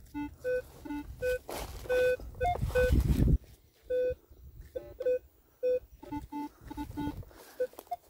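Minelab Equinox metal detector giving a string of short target beeps as the coil is swept over a signal, mostly one mid-pitched tone with some lower tones between. From about a second and a half to three and a half seconds in, dry leaf litter crunches and rustles loudly under the coil and feet.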